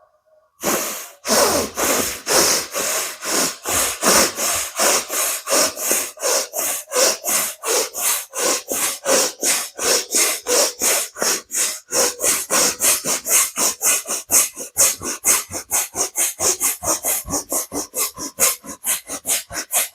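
Bhastrika pranayama (bellows breath): a person breathing in and out forcefully and rapidly through the nose, each inhale and exhale a sharp rush of air, about three strokes a second in an even rhythm. It starts about a second in.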